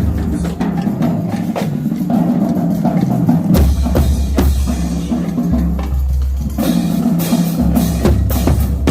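Loud drum-driven music: snare and bass drum hits in a steady rhythm, with a deep sustained bass entering about three and a half seconds in.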